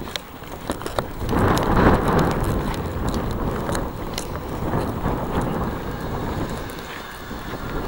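Wind buffeting a handheld camcorder's microphone: a low, uneven rumble that swells about a second and a half in, then settles.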